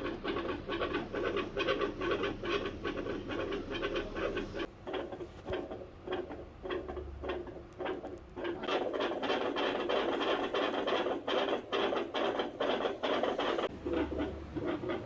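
Stethoscope on a dog's chest picking up scratchy rubbing noise, a dense run of rapid irregular crackles, with no clear heartbeat standing out.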